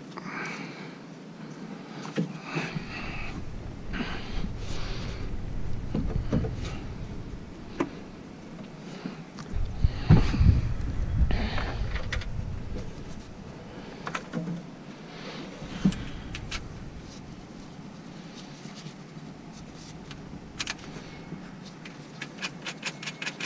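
Handling noise from an aftermarket intake tube and bracket being fitted into a truck's engine bay: scattered knocks, clicks and plastic rustling. A low rumbling noise comes and goes and is loudest about ten seconds in. Near the end there is a quick, even run of small ticks as the bracket hardware is fastened.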